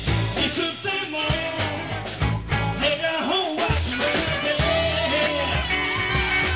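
Live band playing an upbeat number: drum kit, electric bass, guitars, keyboard and alto saxophone.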